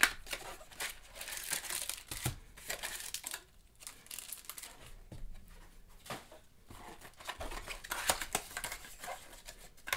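Card packs and a cardboard trading-card box being handled by gloved hands: irregular crinkling and rustling of pack wrappers with light scrapes and taps of cardboard.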